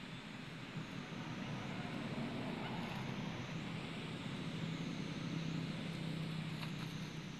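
A steady low engine hum under an even hiss, like a motor vehicle running nearby, growing slightly louder about a second in.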